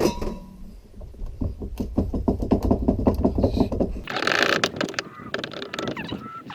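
Ratchet wrench clicking rapidly in an even rhythm, about five or six clicks a second, as it turns the screw of a steering-wheel puller. About four seconds in there is a short burst of hiss-like, scraping noise.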